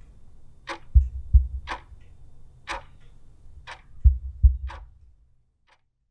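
A clock ticking steadily, about once a second, with pairs of low heartbeat thumps coming in twice. The sound dies away about five seconds in, leaving one faint last tick before silence.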